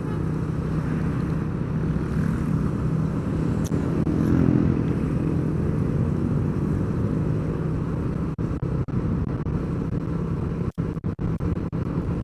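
A vehicle engine hums steadily with road and wind noise while travelling along a road. Near the end the sound cuts out briefly several times.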